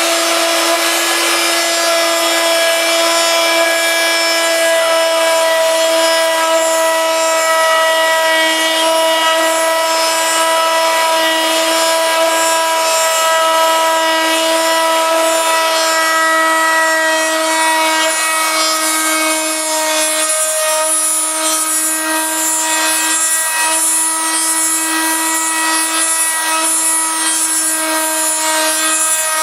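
Router on a homemade copy-milling machine running at a steady high speed with a constant whine, its bit cutting into a wooden lure blank; the cutting noise grows grittier about two-thirds of the way through.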